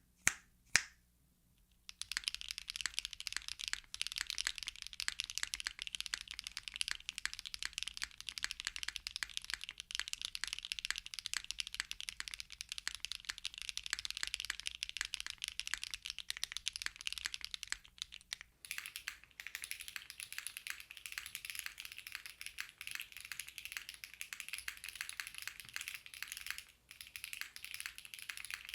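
Fast, continuous typing on a Mode Encore mechanical keyboard with HMX Xinhai switches, an aluminium plate and GMK keycaps: a dense run of keystroke clacks. Two sharp snaps come right at the start. About two thirds of the way in, the recording switches to a phone microphone: the low hum drops out and the clacks sound brighter.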